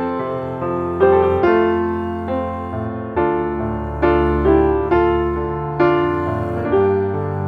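Slow, gentle piano music: single notes and chords struck about once a second and left to ring out over held bass notes.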